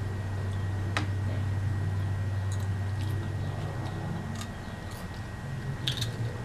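Faint crunching and a few sharp clicks from potato chips being eaten, over a steady low hum.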